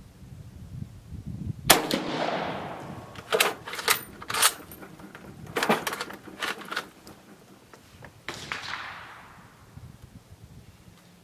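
Carcano M38 short rifle in 6.5mm fired: one sharp shot about two seconds in, the loudest sound, with a long fading echo. Then several metallic clacks as the bolt is worked, and a second shot about eight seconds in.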